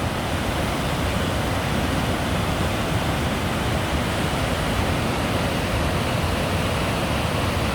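Attikongas waterfall: water rushing over the falls in a steady, even roar of noise.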